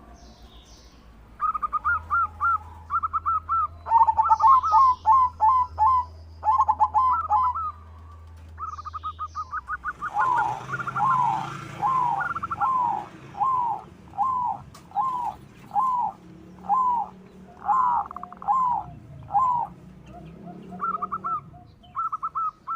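White zebra dove (perkutut) singing: bursts of quick stuttering coo notes, then a long even series of separate coos, about one and a half a second.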